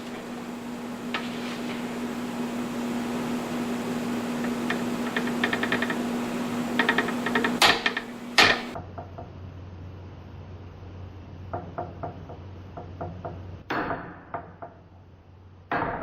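Click-type torque wrench pulled through a test with a spring scale: light ticking as it is worked, then two sharp clicks in quick succession about eight seconds in as it releases at its set torque, followed by more light ticks and a couple of knocks.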